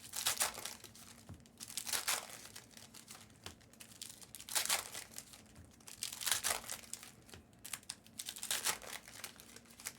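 Trading card pack wrappers crinkling and tearing as packs are ripped open and cards handled, in separate short bursts about every two seconds.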